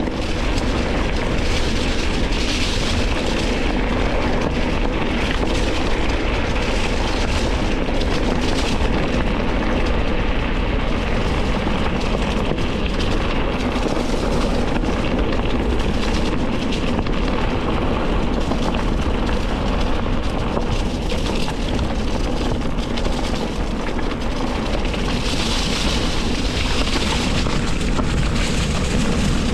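Mountain bike rolling fast over a rough trail: a steady rumble of tyres and wind, broken by frequent small rattles and knocks from the bike.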